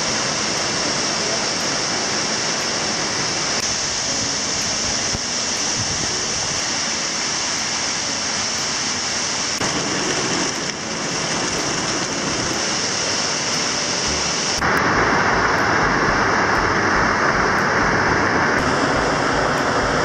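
Rushing water of mountain-stream waterfalls: a steady rush of falling and splashing water that changes abruptly in tone a few times and gets louder about two-thirds of the way through.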